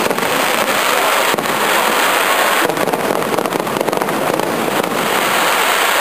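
Fireworks display going off in a dense, continuous barrage of crackling and bangs, with no break.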